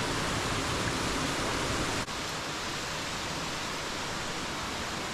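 Steady rush of falling water from a cave waterfall, dipping for an instant about two seconds in and going on slightly quieter.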